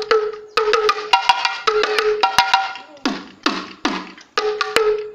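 A cluster of small Yoruba bata drums struck with flat straps in a quick rhythm of sharp, ringing, high-pitched strokes. About three seconds in come three heavier strokes whose pitch drops, then quick strokes resume near the end.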